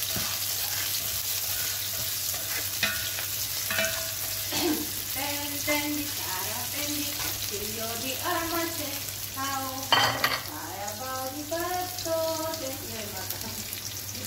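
Ginger strips, fermented black beans and chili sizzling in hot oil in a pan while a spatula stirs them, with a sharp clatter about ten seconds in.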